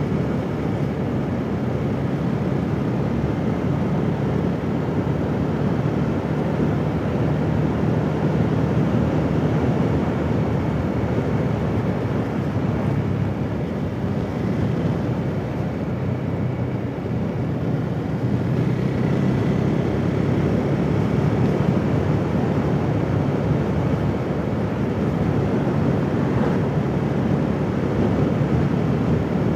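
KTM 390 Duke's single-cylinder engine running at a steady cruise, mixed with steady wind and road noise on a helmet-mounted microphone.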